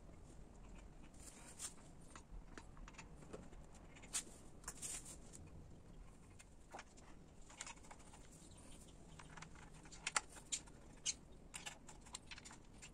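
Faint, scattered clicks and light taps of small metal parts and tools being handled, with a few sharper clicks around four to five seconds in and again around ten to eleven seconds in.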